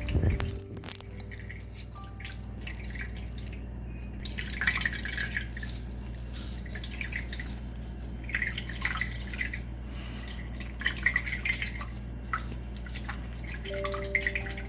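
Liquid dripping and splashing in irregular clusters of drops over a steady low hum.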